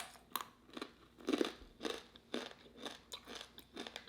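A person chewing crunchy food, with wet crunches at about two chews a second.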